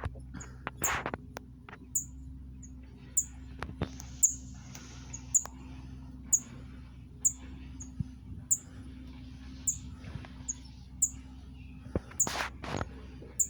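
Small bird chirping at a nest: short, very high chirps repeated about once a second, with a few louder knocks near the end.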